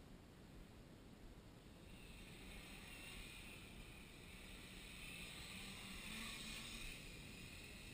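Home-built quadcopter's four brushless motors and propellers buzzing in flight, faint at first, then growing louder from about two seconds in as it flies closer, and easing a little near the end.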